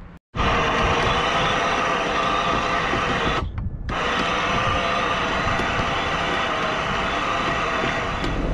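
Anchor windlass at the bow hauling in the anchor chain: a steady mechanical whine with many held tones, briefly cut off about three and a half seconds in.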